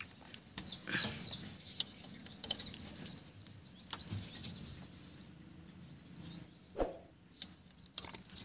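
Birds chirping in short high calls, with scattered light clicks and knocks; the loudest knock comes a little before the end.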